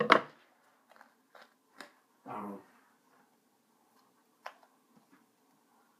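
Scissors and a fabric-covered cardboard piece being handled: a loud clack right at the start, then a few light clicks and snips, with a short low pitched sound about two and a half seconds in.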